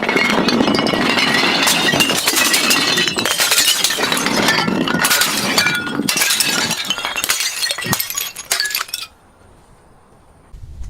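Glass bottles being crushed: a dense, continuous crunching and crackling of breaking glass with clinks of shards, starting abruptly and cutting off suddenly about nine seconds in. A few more clicks follow near the end.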